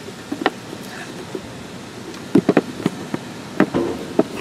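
Cigar boxes knocking and clattering against each other as they are handled and sorted, in short sharp knocks: one early, a quick cluster about two and a half seconds in, and several more near the end.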